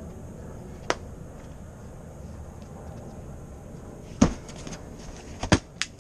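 A few sharp knocks over a low steady background rumble: one about a second in, then a louder cluster of three or four in the last two seconds.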